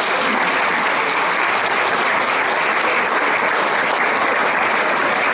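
A crowd of diners applauding steadily, sustained hand-clapping after a speech.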